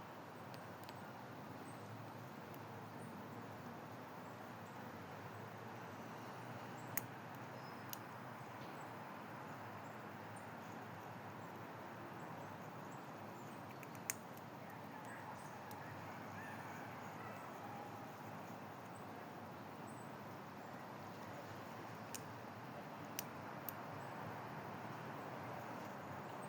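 Quiet outdoor ambience, a steady low hiss, broken by a few sharp isolated clicks, with a small cluster of them near the end.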